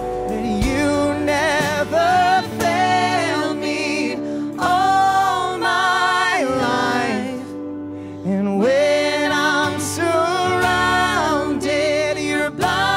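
Live worship band playing: lead and backing vocalists singing the chorus in long held phrases over acoustic guitar and drums, with a short break between phrases about halfway through.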